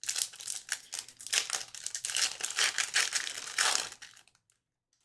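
Crinkling of a trading-card pack's wrapper as it is torn open and handled, a dense run of small crackles that stops after about four seconds.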